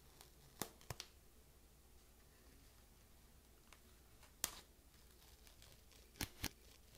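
Light, sharp clicks and taps of a paperboard iPhone box handled with cotton gloves as its paper pull tab is worked and the inner box eased out of the sleeve. The clicks are spaced over near silence: a few in the first second, the loudest about four and a half seconds in, and a quick pair near the end.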